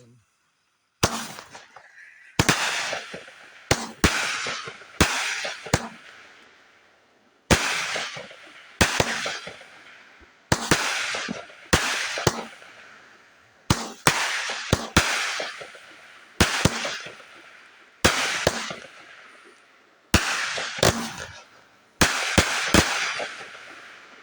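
Consumer fireworks going off in a long run of sharp bangs, starting about a second in and coming every second or so, some in quick pairs. Each bang trails off in a fading crackling hiss.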